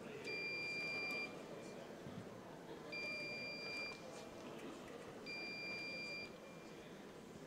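Electric fencing scoring machine sounding three steady beeps, each about a second long and a couple of seconds apart, each one a registered hit.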